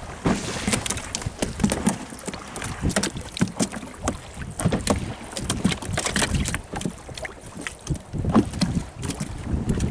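Wind buffeting the microphone and water lapping against a small boat's hull, with irregular sharp knocks and taps scattered throughout.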